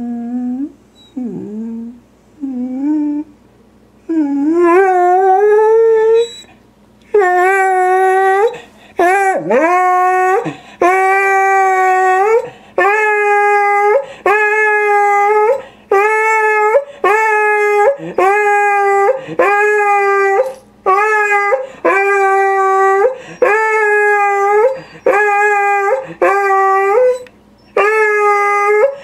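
Beagle-basset hound whining in short rising whimpers, then breaking into a long rising howl about four seconds in, followed by a steady run of baying howls about one a second. It is the sound of the dog upset and protesting.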